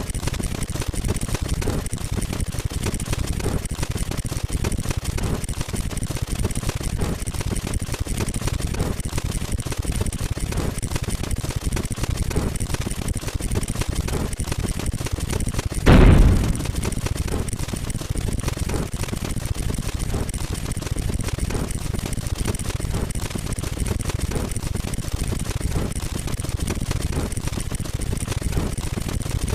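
A rapid, unbroken stream of short counting sound effects that runs together like machine-gun fire. One louder, deeper burst comes about sixteen seconds in.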